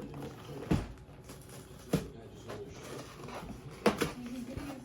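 Cardboard Lego box being opened by its tabs: handling and rustling of the cardboard with four sharp knocks of flaps and tabs, two of them close together near the end.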